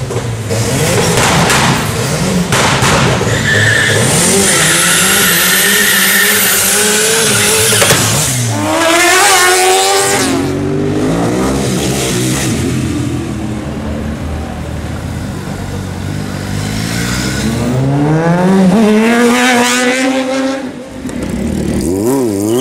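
Sport motorcycle engines revving hard as the bikes accelerate past, the engine pitch climbing steeply several times.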